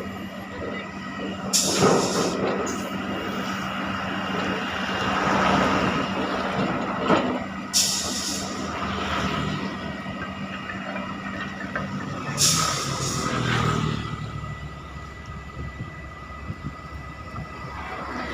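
Hydraulic drilling rig's engine running steadily, with three short, sharp hisses, about a second and a half in, near the middle and around two-thirds through, and scattered metallic knocks.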